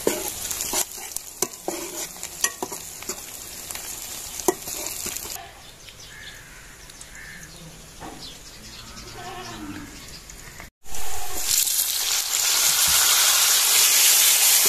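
A ladle stirring sliced onions frying in oil in a steel karahi, with many sharp scrapes and knocks of the ladle against the pan over a sizzle. After a quieter stretch and a sudden break, a loud, steady sizzle of tomatoes and green chillies frying in hot oil.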